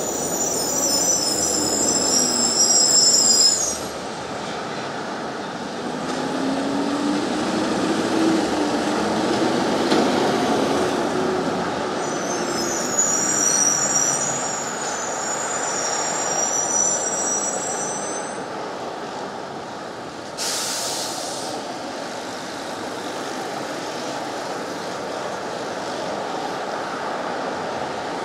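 Street traffic passing, with a high-pitched squeal twice, each lasting several seconds, and a short hiss about twenty seconds in.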